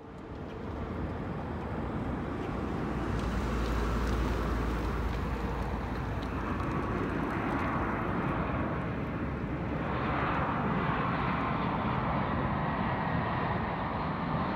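Jet engines of a twin-engine narrow-body airliner on final approach with its gear down. The noise swells over the first few seconds as the plane nears, then holds steady, growing a little brighter about ten seconds in as it passes closer.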